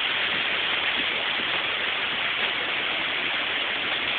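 Hurricane wind and rain making a steady, even hiss with no single gusts or impacts standing out.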